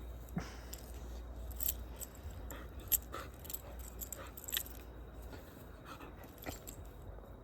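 Dog chewing something, with irregular crunching clicks.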